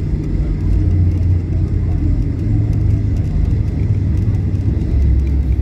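Steady low rumble of engines and airframe heard inside a Boeing 737-800's cabin as the jet taxis on the ground, its CFM56-7B engines at idle, with a faint steady high whine.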